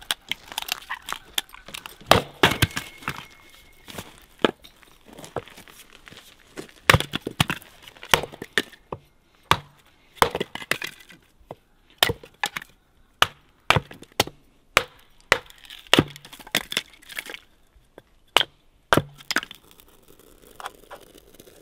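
Hatchet splitting kindling on a wooden chopping block: a long run of sharp chops and wood knocks, about one or two a second at the busiest, stopping about two seconds before the end.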